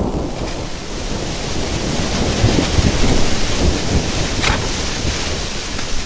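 Storm wind buffeting a snow-covered tent, heard from inside: a steady rushing hiss over low rumbling gusts, swelling a little midway. There is a brief rustle about four and a half seconds in.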